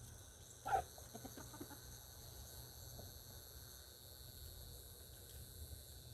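A chicken clucks once, loudly, under a second in, followed by a few softer clucks. Insects buzz steadily throughout.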